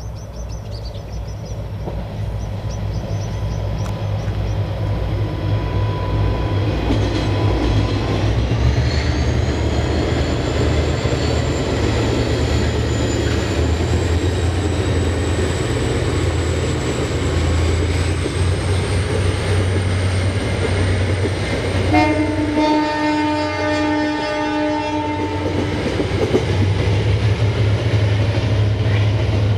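Two diesel locomotives hauling a passenger train past, their engines running with a low rumble that grows louder as they approach. Wheels clatter on the rails. The locomotive horn sounds for about four seconds, about three quarters of the way through.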